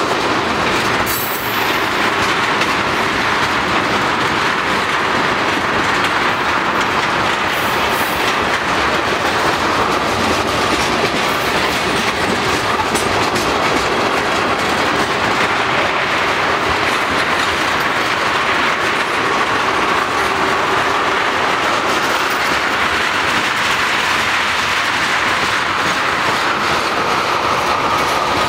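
Freight train tank cars rolling past, their steel wheels on the rails making a steady, continuous rolling noise with a faint steady whine.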